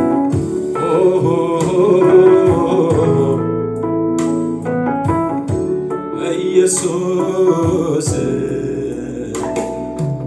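Keyboard accompaniment for a worship song, with a voice singing over it in two phrases.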